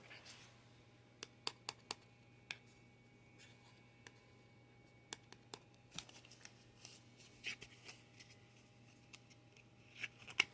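Faint scattered clicks and short rustles of plastic packaging being handled and picked at while a squishy fidget toy is opened, over a low steady hum.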